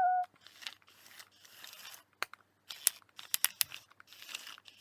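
Handling noise: scattered sharp clicks and short rustles, with no steady motor whirr.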